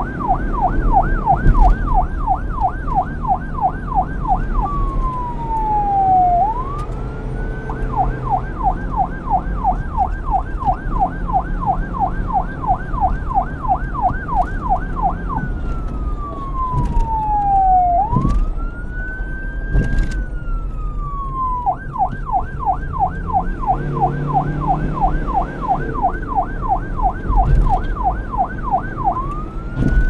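Police car electronic siren switching between a fast yelp, about three sweeps a second, and a slower wail that glides down and back up. The yelp runs for several seconds at a time, broken by the wail about a third and two-thirds of the way through. A low rumble sits underneath.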